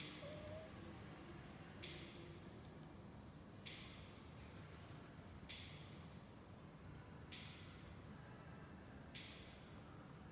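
Crickets trilling at night: one steady, high, rapidly pulsed trill throughout, with a second, lower buzz coming in phrases about every two seconds.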